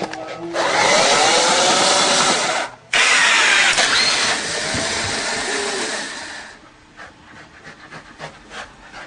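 Electric motor of a homemade ball-throwing machine whirring loudly and rising in pitch as it spins up, dropping out for a moment just under three seconds in, then running again and dying away about six and a half seconds in.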